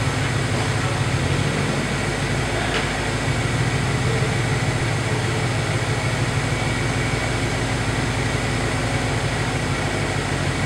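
A BMW M5's twin-turbo V8 and an Infiniti G37's V6 idling side by side through aftermarket GTHAUS catback exhausts. A steady low, throbbing rumble with no revving.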